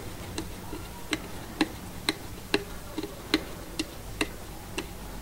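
Light, fairly regular clicks, about two a second, from a hand screwdriver being turned to undo the small brush-holder screws on the back of an alternator.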